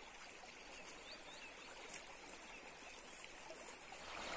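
River water rushing steadily over a rocky stretch, with a few faint bird chirps and one brief click about two seconds in.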